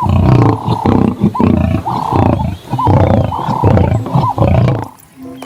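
Lion roaring: a series of loud, repeated roars that stops about five seconds in.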